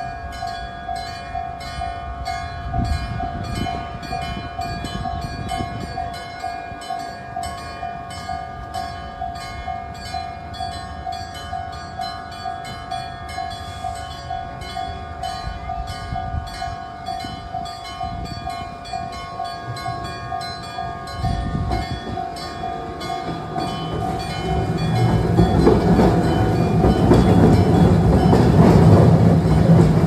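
A level-crossing electric bell (denshō), an old-style gong struck by an electric hammer, rings steadily at about two to three strikes a second with a lingering metallic ring. From about 24 seconds in, a Randen tram passes over the crossing and its rumble grows louder than the bell.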